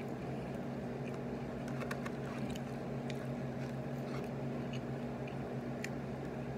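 A steady low hum, with faint scattered clicks and rustles as a hand picks through a cardboard chicken nugget box.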